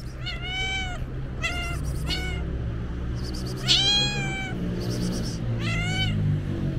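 Black-and-white domestic cat meowing repeatedly, about five meows that rise and fall in pitch, the longest and loudest a little past the middle.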